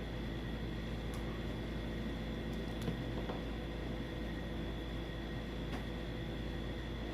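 Steady electrical hum and hiss, with a few faint clicks about a second in, near three seconds and near six seconds.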